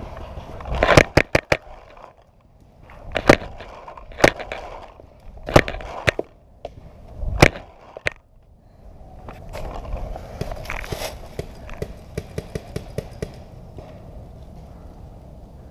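Sharp cracks and knocks: a quick run of four about a second in, then single ones every one to two seconds, and near the end a run of lighter ticks, about six a second.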